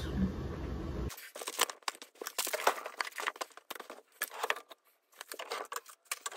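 After about a second of low steady rumble, paper packaging crinkling and rustling in a quick run of crackles as gift boxes are unwrapped and handled.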